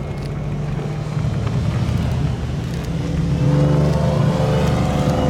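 Mercedes C 111-II engine running, its note climbing and getting louder about three and a half seconds in as it accelerates.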